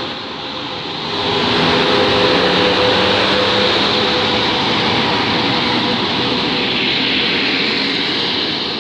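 PKP Intercity EP09 electric locomotive departing and passing close while it gathers speed, followed by its passenger coaches rolling by. The noise swells about a second in and holds steady, with a few steady tones over the rumble.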